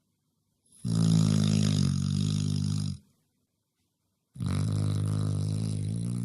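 Sleeping Labrador puppy snoring: two long snores of about two seconds each, with a pause between.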